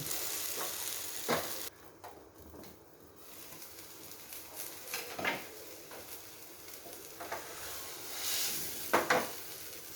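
A spatula scraping and stirring through a pan of crumbly dal and banana flower mixture frying on low heat, with a light sizzle and a few separate scrapes against the pan. The sizzle drops away for about a second and a half early on.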